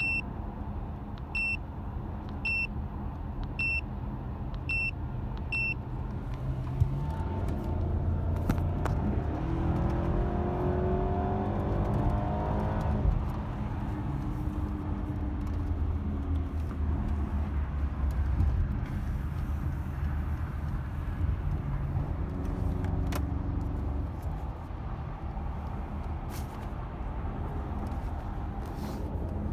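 BMW engine running with a misfire, which has set its check engine light. It is revved up slowly once in the middle and briefly again later, and about six evenly spaced warning beeps sound at the start.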